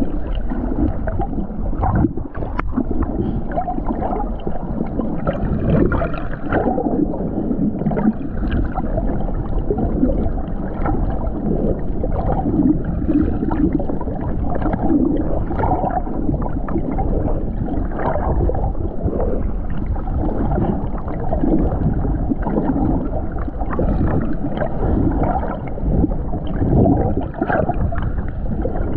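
Muffled underwater water noise picked up by a camera in a waterproof housing: an uneven, gurgling wash of water and bubbles moving around the housing.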